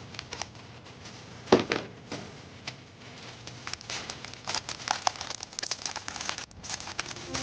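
Product packaging being handled and opened: irregular crinkling, rustling and small clicks, with one louder knock about a second and a half in.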